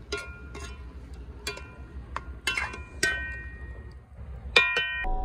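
Metal spoon knocking against a cooking pot of stewing chicken: several sharp clinks, each ringing briefly, the loudest near the end.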